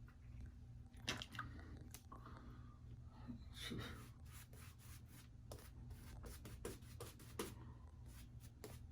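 Faint short scrapes of a vintage Gillette safety razor drawn over lathered stubble, a quick stroke every half second or so, over a steady low hum.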